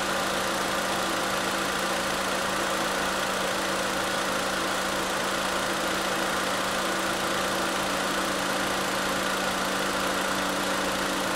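2017 Honda Civic's 2.0-litre four-cylinder engine idling steadily under the open hood, just started after an oil change with fresh 0W-20 oil.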